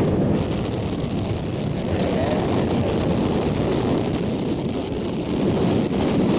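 Wind buffeting the microphone: a steady, loud, low rushing noise with no clear engine tone.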